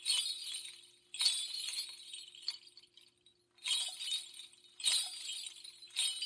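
Bright, glassy jingling sound effect struck five times, each burst starting sharply and fading out over about a second.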